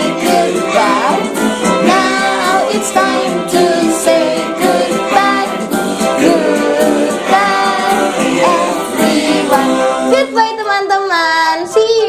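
A children's goodbye song: sung melody with instrumental backing.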